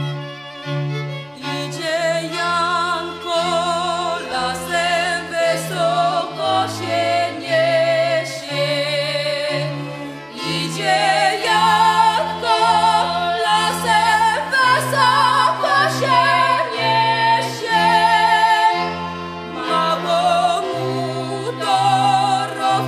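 Background music: a melody with heavy vibrato over a bass line that steps to a new note about once a second.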